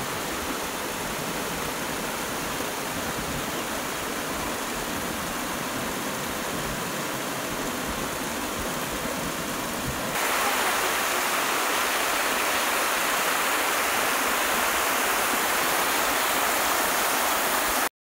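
Small waterfall cascading over rock: a steady rush of falling water that gets louder and brighter about halfway through and cuts off suddenly near the end.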